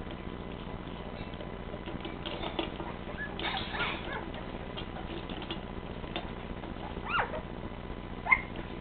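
Golden retriever puppies scrabbling and shuffling about, with two short high puppy squeaks near the end, the second the sharpest.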